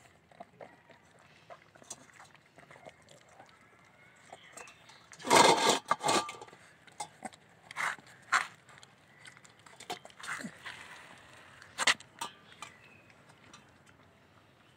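Beagle puppy eating from a steel food bowl: scattered crunching and clicking, with a loud rasping noise lasting about a second roughly five seconds in and a few sharper clicks later.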